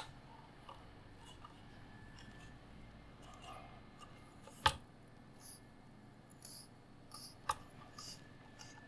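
Faint handling of a computer case side panel and its glass by hand: light rubbing and small ticks, with a sharp click about halfway through and another a little before the end.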